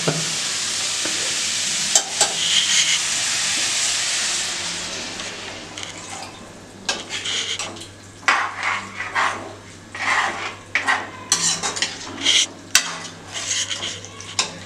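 Chickpea curry sizzling in a steel kadai, fading over the first few seconds. A steel ladle then stirs it, scraping and clinking against the pan in repeated strokes.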